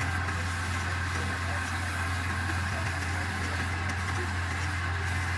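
Wood lathe running steadily with a low hum, while a spinning wooden spindle is sanded by hand with sandpaper, adding a steady hiss.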